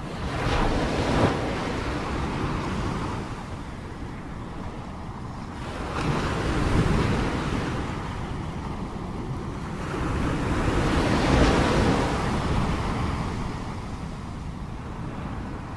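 Sea waves breaking and washing in, three surges in turn, each building and fading over a few seconds, with wind noise on the microphone.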